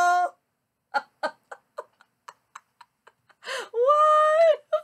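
A woman's held sung note ends, then she laughs in short breathy bursts, about four a second and fading, and near the end lets out a long high-pitched exclamation.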